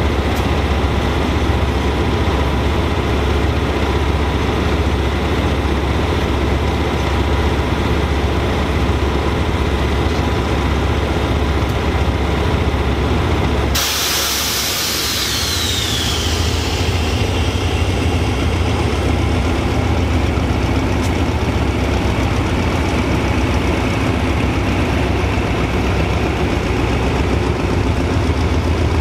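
Diesel locomotive engine idling with a steady low hum. About halfway through, a sudden loud hiss of air, the brakes releasing, dies away over a few seconds, and the engine runs on as the train starts moving.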